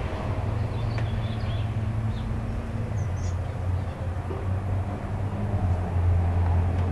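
Low, steady hum of a vehicle engine running, with a few faint short high chirps.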